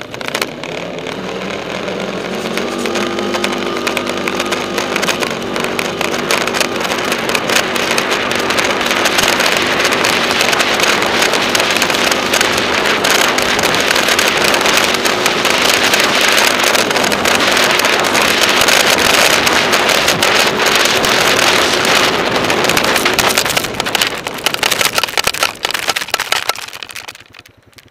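Honda TRX420 quad's single-cylinder four-stroke engine running as the quad is ridden, with heavy wind buffeting on the microphone. The noise grows louder over the first several seconds and falls away near the end.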